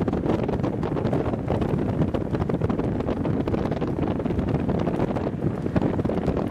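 Wind buffeting the microphone on the open deck of a moving car ferry: a steady, rough rushing.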